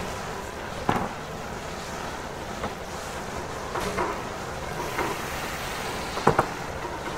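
Knife and raw chicken knocking on a cutting board while a whole chicken is cut up: a few sharp knocks, one about a second in and a louder double knock near the end, over a steady hum of room noise.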